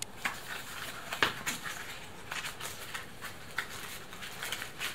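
Small cardboard box being handled and opened by hand: scattered light taps, scrapes and rustles of the cardboard, with the loudest knocks a little over a second in.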